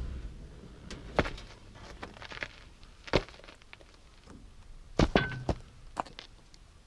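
Boots stepping out of a pickup onto a gravel road: a handful of separate crunching steps and knocks spread over several seconds, with a short high squeak about five seconds in.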